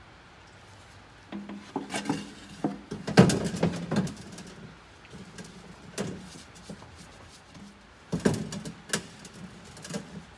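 Scattered metallic clanks and knocks of hand tools against metal under a truck as the old spin-on oil filters are taken off. The loudest clatter comes about three seconds in, with more clanks at about six and eight seconds, over a faint steady low hum.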